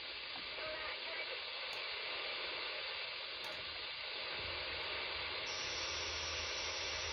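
Steady hiss from an FM radio receiver, a KiwiSDR web SDR tuned to a weak 26.110 MHz broadcast remote cue link, with faint traces of the link's audio in the noise. A low hum joins about four seconds in. A little later the hiss grows brighter as the receiver's passband is widened.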